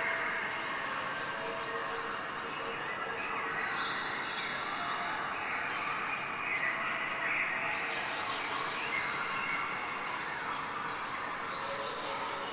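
Steady outdoor background noise with birds chirping.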